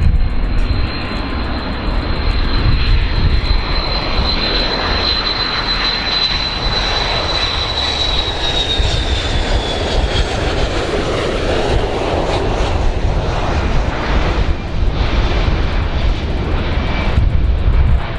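Boeing 727-200 jet airliner on landing approach, its three Pratt & Whitney JT8D engines running with a high steady whine. About halfway through, the whine slides down in pitch as the plane passes close, leaving a deeper rumble.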